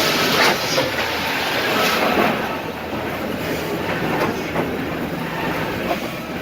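Wood-processing machinery running steadily: conveyors and saws cutting boards into pallet components, with a constant mechanical noise and scattered knocks and clatter.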